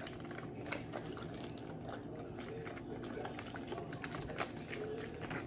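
A capped plastic water bottle holding water and a penny being shaken: quick, irregular sloshing with many light clicks.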